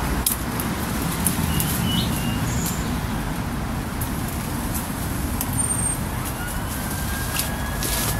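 Steady rumble of road traffic from a busy roundabout, with a few short bird chirps.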